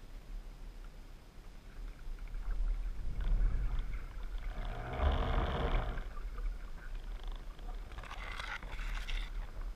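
Muffled underwater sound picked up by a camera in its housing: a steady low rumble, a noisy swell about five seconds in, and a burst of crackling near the end.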